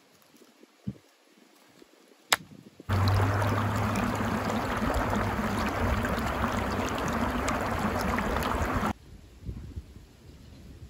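Irrigation water gushing out of a pipe into a dirt furrow: a loud rushing splash with a steady low hum beneath it. It starts abruptly about three seconds in and cuts off abruptly about six seconds later. Before it, near quiet with a single sharp click.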